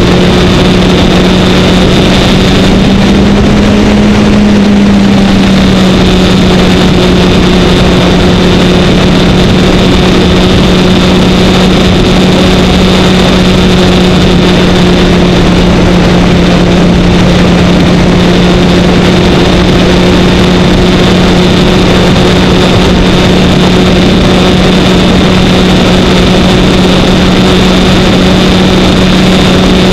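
Kawasaki Ninja 1000's inline-four engine running at a steady highway cruise under a loud rush of wind on the microphone. The engine note rises briefly a few seconds in, then settles and holds steady.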